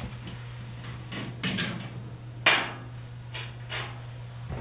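Handling noises: a few brief rustles and light knocks as someone works at a metal-framed booth, the loudest about two and a half seconds in, over a steady low hum.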